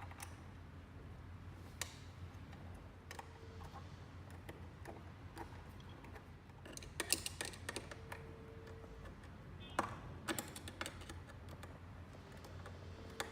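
Scattered light clicks and taps of small mounting hardware being handled as the floodlight's cap nuts are fitted onto the bracket, busier about seven and ten seconds in, over a low steady hum.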